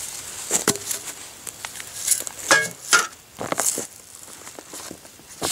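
Scattered knocks, clatters and rustles as a plastic bin lid is handled and settled on a tree stump, with movement in dry leaf litter.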